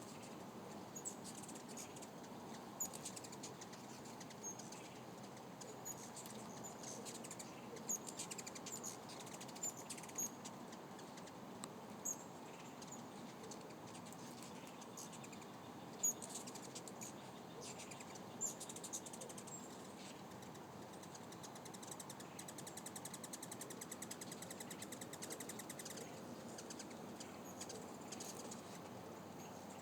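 Hummingbirds at feeders chirping: short, high chips scattered throughout, with a stretch of rapid, fast-repeating high ticking about two-thirds of the way through, over a faint steady background.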